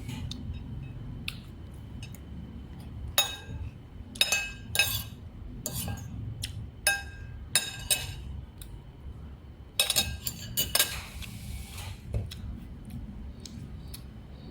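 Dishes and cutlery clinking: a run of sharp, ringing clinks, scattered from about three seconds in and bunching together around ten seconds, over a low steady background rumble.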